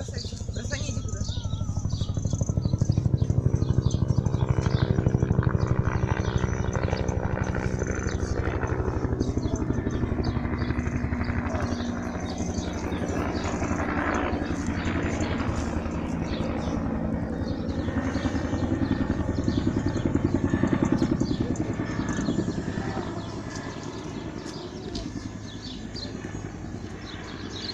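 A motor vehicle's engine running steadily, louder in the first few seconds and fading toward the end.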